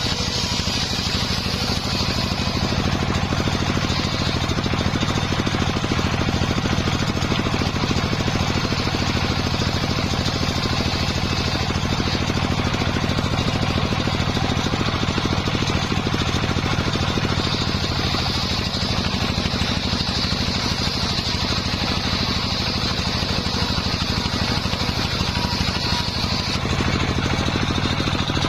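Circular sawmill running steadily with a low engine-like drone. A higher whine comes in near the start and again through much of the second half.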